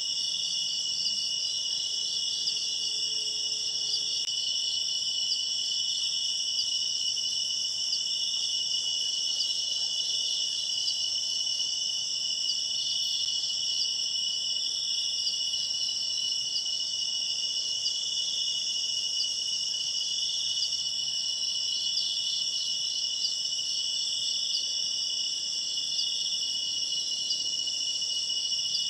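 Steady, dense chorus of crickets and other night insects, a continuous high-pitched trilling that keeps on without a break.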